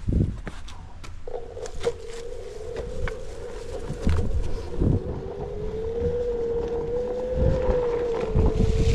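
Onewheel electric board's hub motor whining as it rolls along a dirt trail, the pitch wavering with speed; the whine starts about a second in. Under it, wind rumbles on the microphone and the board thumps over bumps.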